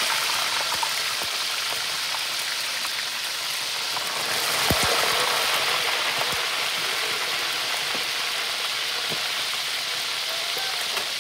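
Whole parrotfish deep-frying in a pot of hot oil: a steady, loud sizzle with scattered crackles and pops, one sharper pop a little under five seconds in.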